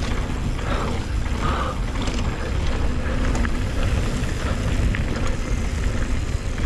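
Wind on the microphone and the rumble and rattle of a Scott Ransom full-suspension mountain bike pounding down a rough, choppy downhill trail, with many small clicks and knocks from the bike. Heavy breathing from the rider in the first couple of seconds.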